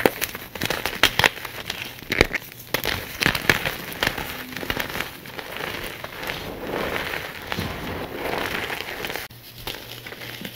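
Dyed gym chalk crumbled and squeezed in bare hands: a dense crackle of sharp little crunches, easing into a softer gritty rustle of powder being rubbed between the palms, with a short lull near the end.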